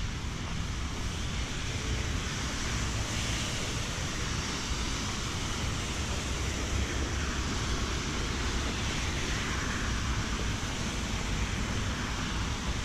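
Rain and passing cars' tyres hissing on a wet road: a steady wash of noise that swells a little as cars go by.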